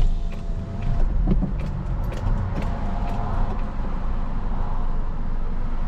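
A car driving, heard from inside the cabin: steady engine and road rumble.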